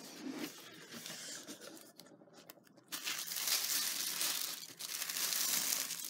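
Tissue paper rustling and crinkling as it is folded back, with quieter handling rustles at first and the crinkling growing louder from about three seconds in.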